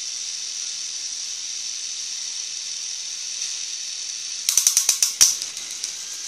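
K'nex model engine running, its plastic gears and spinning flywheel making a steady high whir. About four and a half seconds in comes a quick run of sharp plastic clicks and rattles from the gearing, as the model is put into high speed.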